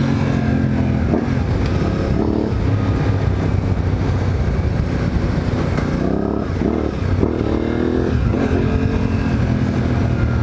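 Suzuki V-Strom 800DE motorcycle's parallel-twin engine under way, its revs rising in several sweeps as it accelerates through the gears, over steady riding noise.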